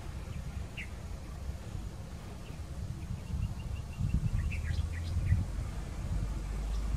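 Diesel engines of an excavator and dump trucks running with a low rumble that swells about four seconds in. Small birds chirp over it, including a quick run of high pips.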